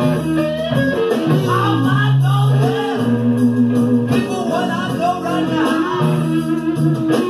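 Live rock band playing: a lead line bends up and down in pitch over steady bass and chords. Heard through a cassette recording of the front-of-house mixing desk.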